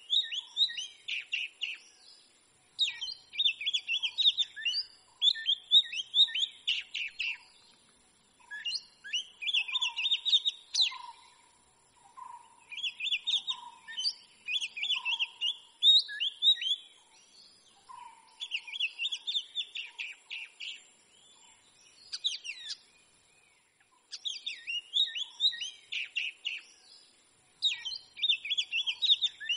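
Oriental magpie-robin singing: phrases of rapid, varied whistles and chirps, each a second or two long, repeated every two to three seconds with short pauses between them. A softer, lower note repeats beneath the song.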